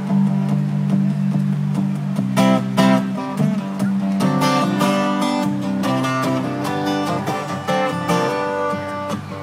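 Instrumental stretch of a song: acoustic guitar strumming chords over sustained low notes, with no singing.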